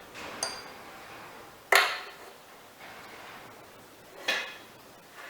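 Three sharp metallic clinks and knocks from tools and metal engine parts being handled: about half a second in, just before two seconds, and a little after four seconds. The first rings briefly; the second is the loudest.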